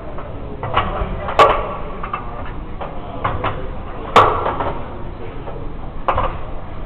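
Sharp metallic clanks of gym weights, the two loudest about a second and a half and about four seconds in, each ringing briefly, with a fainter knock near the end, over the steady background noise of a busy weight room.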